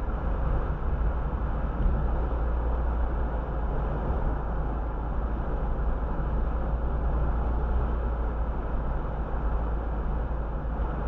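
Steady road noise of a car cruising at about 30 mph, heard from inside through a dashcam: an even tyre and engine rumble, heaviest in the low end, with no changes.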